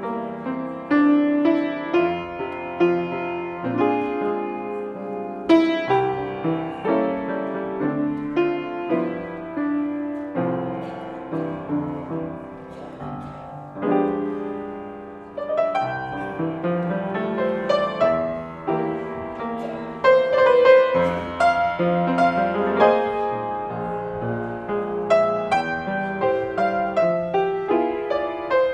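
Piano playing a slow instrumental piece, its notes struck one after another and left to ring.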